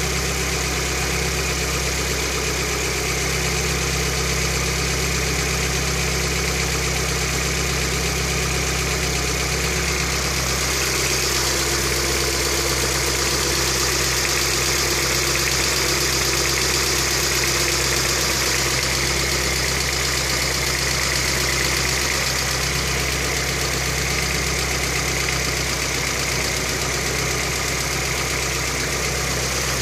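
Lada Kalina 1.5 engine running steadily around idle, recorded for a knock (стук) heard from the engine. The engine note shifts slightly and grows a little louder about ten seconds in.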